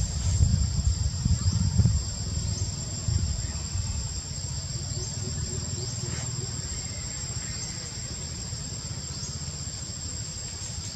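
Steady chorus of insects: a continuous high drone with a thin, unwavering tone above it. A low rumble, loudest in the first two seconds, then settles into the background.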